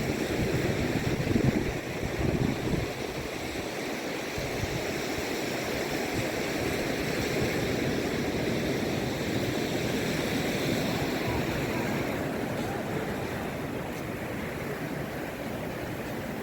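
Surf washing onto a beach: a steady rush of noise. Gusts of wind buffet the microphone during the first few seconds.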